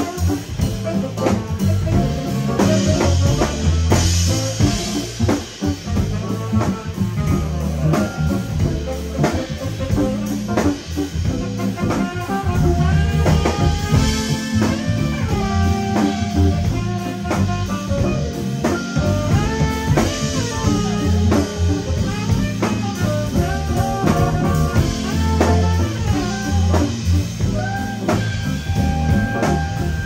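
Live band playing an instrumental jazz-funk groove: drum kit keeping a steady beat under electric bass, electric guitar and a saxophone playing melodic lines.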